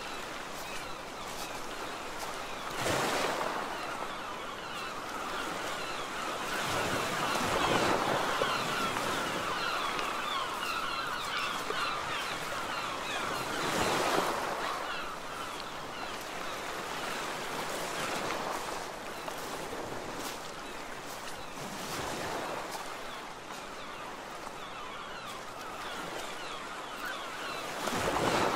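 Sea surf and wind on the shore: a steady wash that swells every few seconds as waves come in.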